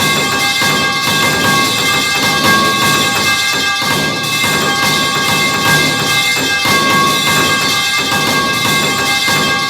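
Continuous music with sustained ringing tones and percussion, steady in loudness, with no separate clangs and no silence.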